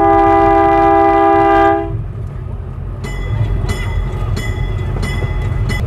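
16-inch-gauge park train's horn sounding one long, steady chord-like blast of about two seconds that cuts off, over the low rumble of the running train. From about three seconds in, the wheels click over the rail joints at a steady pace, about one click every half second or so.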